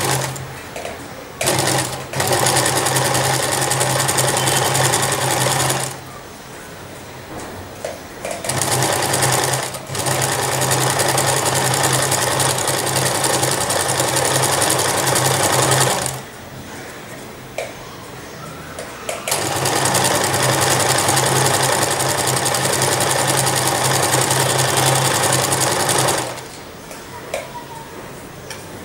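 Domestic electric sewing machine stitching a fabric waistband, running in three runs of about five to six seconds and one brief burst, with short stops between as the fabric is repositioned.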